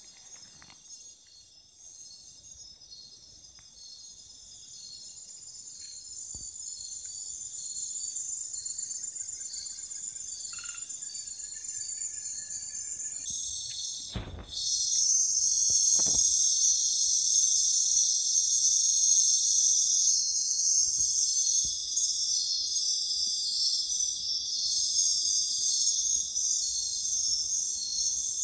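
Night-time chorus of crickets: a dense, high-pitched pulsing trill that goes on without a break and grows louder after a brief knock about halfway through.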